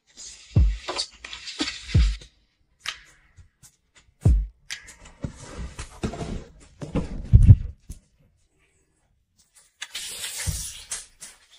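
Close household handling sounds in quick succession: soft thumps and taps, a stretch of fabric rustling from bedding being moved in the middle, and a burst of hiss near the end while hands are washed with foam soap.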